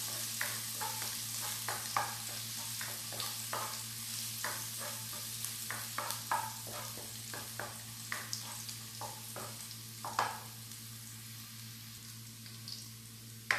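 Chopped garlic sizzling in hot olive oil in a frying pan as it browns, with a spatula scraping and knocking against the pan as it is stirred. The stirring stops a few seconds before the end while the sizzle carries on.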